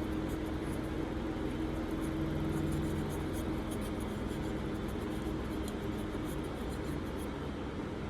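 Faint scratchy rubbing and small ticks of a cotton swab being scrubbed over a metal lighter part, over a steady low background hum.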